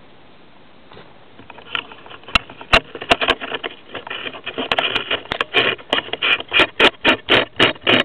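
Rhythmic scraping strokes that begin irregularly, with a couple of sharp clicks, about two seconds in, then settle into a steady pace of about three strokes a second.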